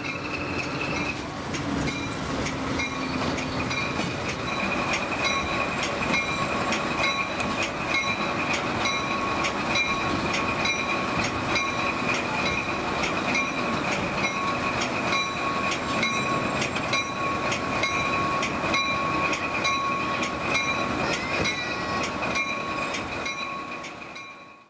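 Vintage passenger train coaches rolling along the track, with a steady rumble and repeated wheel clicks over the rail joints. A thin, steady high tone runs over it, and the sound fades out near the end.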